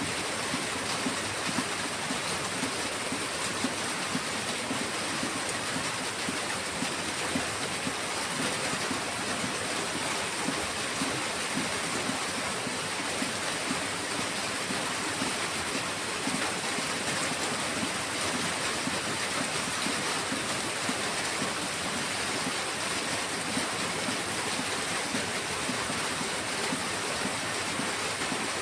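Heavy rain pouring steadily, an even wash of noise with no breaks.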